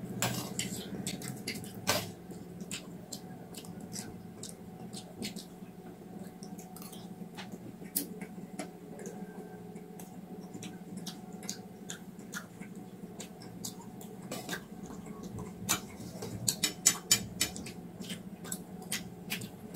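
Steel spoons scraping and clicking against stainless steel plates as they stir and scoop raw rice grains in water: scattered sharp clicks, with a quick run of clicks near the end, over a faint steady hum.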